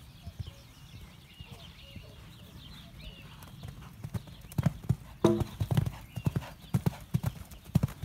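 Hoofbeats of a horse cantering on a sand arena, soft at first and growing loud and heavy from about four seconds in as it comes close and takes a jump.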